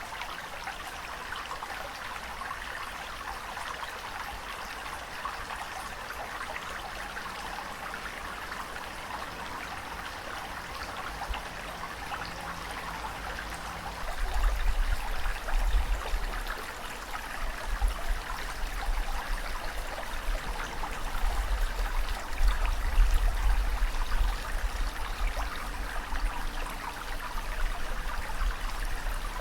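Ocean waves washing steadily, a continuous hiss and fizz of moving water. About halfway through a deep rumble joins and the sound grows louder.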